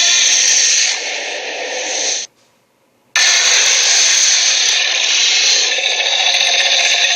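Loud, harsh hissing in two long stretches, broken by a sudden gap of under a second about two seconds in.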